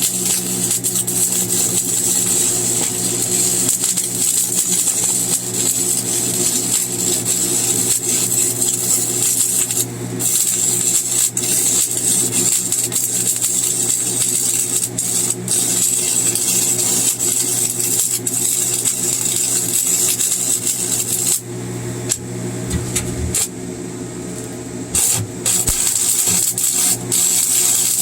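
Stick welding with a 7018 rod: the arc's steady crackling sizzle over the welder's electrical hum. Near the end the arc breaks off for a few seconds, leaving the hum, then strikes again.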